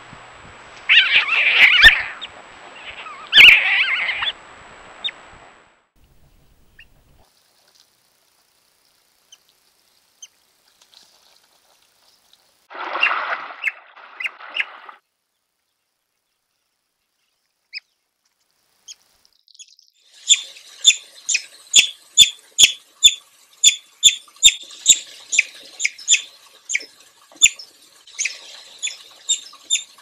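River otters calling. First come two loud, rough calls a couple of seconds apart, then a short burst of calls near the middle. From about two-thirds of the way in comes a rapid run of short, high chirps, roughly two a second, that goes on to the end.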